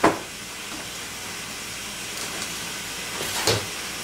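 Baby slapping a cardboard 12-can soda carton with her hands: one sharp hit at the start and a few softer knocks about three and a half seconds in, over a steady hiss.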